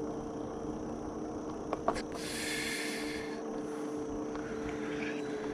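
Electric hub motor of a Juiced Scrambler e-bike whining at a steady pitch while cruising. A couple of light clicks come just before two seconds in, followed by a brief hiss lasting about a second.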